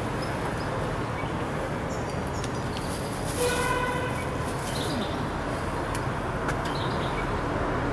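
Street ambience: a steady wash of traffic noise. About three and a half seconds in, a short pitched tone sounds for under a second, and there are a few faint high chirps.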